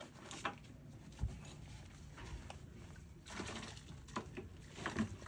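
Quiet work-handling sounds: a few light knocks and clicks, with a low thump about a second in and a stretch of scraping noise later on.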